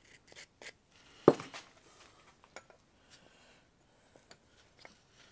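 Scattered light clicks and clinks of metal tools and engine parts being handled, with one sharper knock about a second in.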